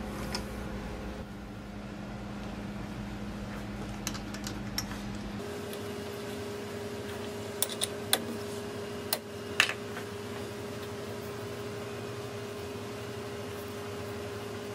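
Scattered light clicks and taps from hands handling metal and wooden lathe parts, such as a drill chuck, over a steady hum that shifts in pitch about five seconds in.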